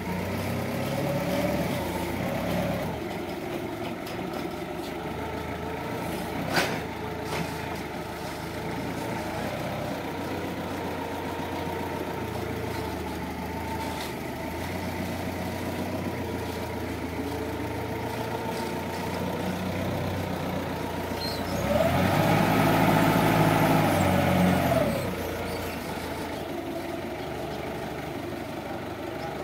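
Linde forklift's engine running steadily as it drives a pallet, with one sharp knock about six seconds in. Near the end the engine revs up and back down for about three seconds as the pallet is raised onto the truck bed.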